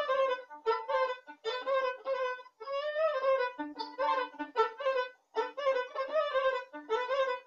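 Solo violin playing a Serbian kolo folk dance melody, a single line of short notes in phrases broken by brief pauses, now and then with a low sustained note underneath.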